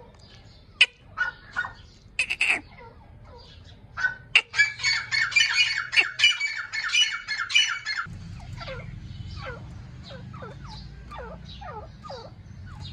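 Grey francolin calling: a few sharp, harsh notes, then from about four seconds in a loud, rapid run of repeated harsh calls. After about eight seconds this gives way to a softer series of short falling notes over a low background rumble.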